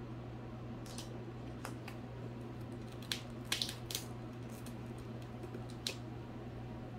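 Ragdoll cat pawing and biting at the edge of a mesh pet hammock: scattered light clicks and scratches of claws and teeth on the mesh and frame, with a quick cluster of them a little past the middle, over a steady low hum.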